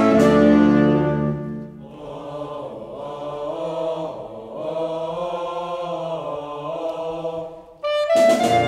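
Saxophone orchestra with percussion holding a loud chord that breaks off after about a second and a half; men's voices then sing a wavering line for about six seconds, and the full band comes back in loudly near the end.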